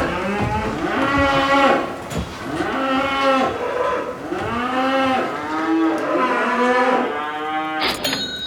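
A cow mooing: long, drawn-out moos one after another with hardly a pause between them.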